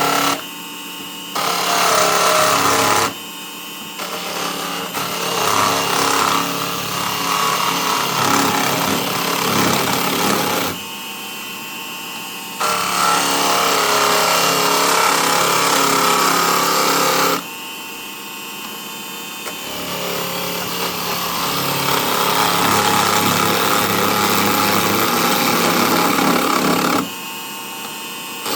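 Small benchtop wood lathe running with a steady motor hum, while a turning tool cuts the spinning wood. The loud scraping of the cut comes in stretches of a few seconds, stopping and starting about five times, with only the motor hum in the gaps.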